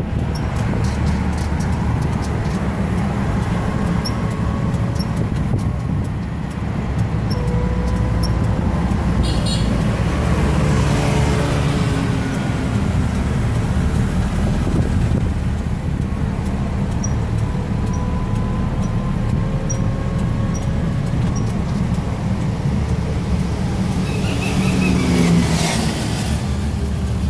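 Street traffic heard from an open pedicab on the move: a steady low road rumble, with cars passing close by about ten seconds in and again near the end.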